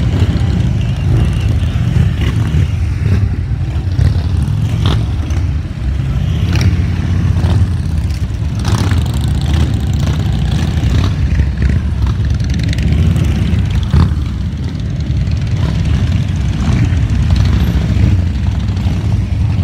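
Many motorcycles riding past in a procession, their engines running loudly and continuously as a low, dense engine sound, with scattered short pops and clicks.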